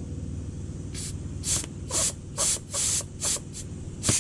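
About eight short blasts of compressed air hissing through a windshield washer line and its inline check valve, starting about a second in, testing which way the valve lets flow through. A steady low hum runs underneath.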